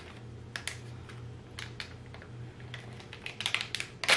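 Small plastic packet of slime charms being opened by hand: irregular crinkles and sharp clicks, bunching together about three and a half seconds in, with one louder click at the end.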